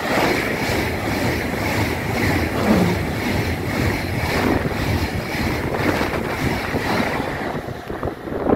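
Deutsche Bahn ICE 4 electric high-speed train passing close by at speed without stopping: a loud, steady rush of air and wheels on rails, with wind buffeting the microphone. The higher hiss drops away near the end as the train leaves.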